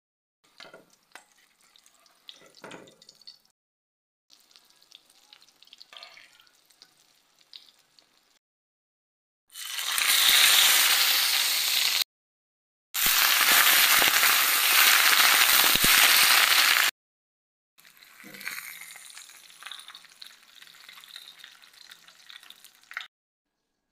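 Food frying in hot oil in a pan, sizzling. The sizzle is loud and steady through the middle, broken by abrupt cuts, with fainter sizzling and handling noises before and after.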